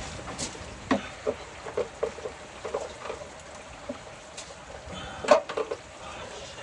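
Steady rain hiss, with scattered short knocks and clinks, the loudest just after five seconds in.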